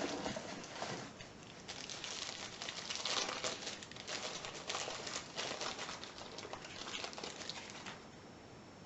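Packaging crinkling and rustling as it is unwrapped by hand, a dense irregular crackle that stops about eight seconds in.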